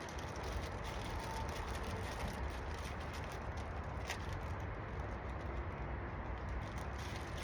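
A plastic headlight lens being sanded with 3000-grit abrasive: a continuous scratchy rubbing with many fine strokes, the fine-grit stage that leaves the lens clear.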